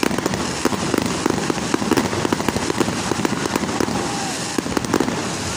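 Aerial fireworks bursting: a dense, continuous run of sharp cracks and pops, many each second, from crackling star shells. It eases off slightly near the end.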